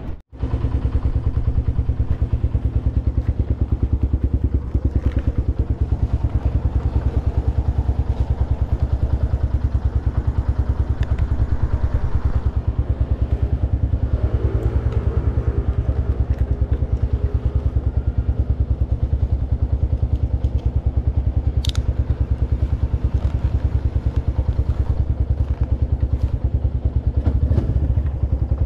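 Motorcycle engine running steadily while being ridden, with a low, even rumble. A single sharp click comes about two-thirds of the way through.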